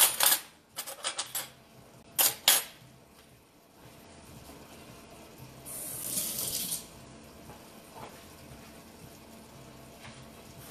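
Metal kitchen utensils clattering three times in quick succession, then a water tap running for about a second, around six seconds in.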